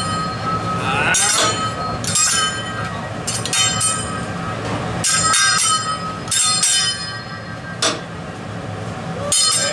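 Hibachi chef's steel spatula and fork clanging against each other and the griddle in a showy rhythm: ringing metallic clangs about once a second, some in quick pairs.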